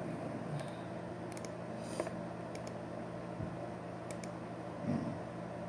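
Scattered light clicks of a computer keyboard and mouse over a steady low hum, with a soft thump near the end.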